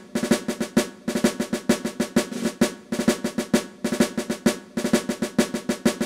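Intro music played on a snare drum: a fast cadence of quick strokes and short rolls in groups, which stops at the close.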